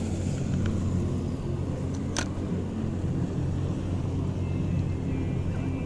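A boat's outboard motor runs with a steady low hum. There is a single sharp click about two seconds in.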